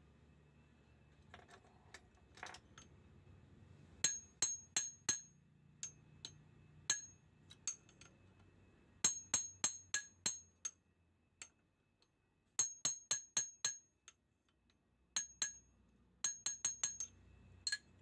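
Sharp metal-on-metal taps with a bright ring, in quick runs of four to six and a few single strikes: a steel pipe driving a socket down to seat a new bushing in a Toyota Avanza steering column tube.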